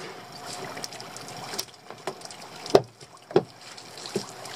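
Wet lobster-pot rope and floats being hauled in and coiled by hand over the side of a small boat, with water dripping and a few sharp knocks, the loudest a little past halfway.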